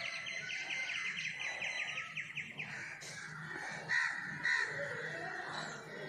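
Birds calling: a rapid chattering trill for the first couple of seconds, then two loud, harsh crow caws about half a second apart, with house sparrows chirping in the background.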